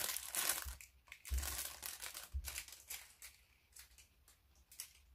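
Packaging being handled and unwrapped: rustling and crinkling that is strongest in the first second and then comes in short scattered bursts, with two soft bumps about a second and two seconds in.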